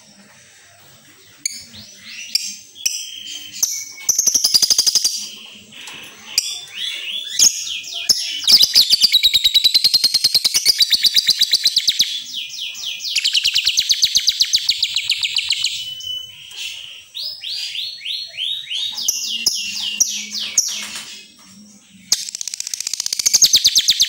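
Lovebird singing: series of sharp chirps that sweep downward, broken by two long runs of very rapid, high-pitched chattering trills in the middle.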